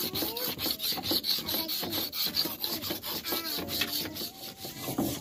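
Knife blade being sharpened on a wet whetstone: quick, rhythmic back-and-forth scraping strokes of steel on stone.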